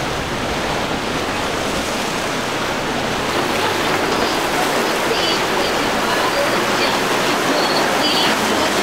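Rushing, breaking water of waves and boat wakes in a rough inlet, a steady noisy wash with no clear engine note.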